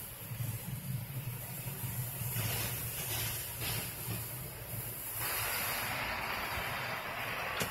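RACO automatic car wash heard from inside the car: a steady low hum from the wash equipment under a rushing hiss of spray and air over the car, which grows louder and fuller about five seconds in.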